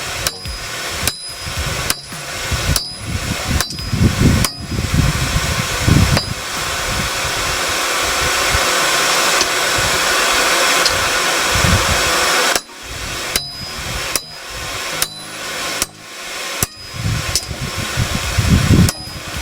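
Hand hammer striking hot steel on an anvil while drawing out a sword blade, about two blows a second, each with a short high ring. The blows stop for about six seconds in the middle, leaving a steady rushing noise, then resume.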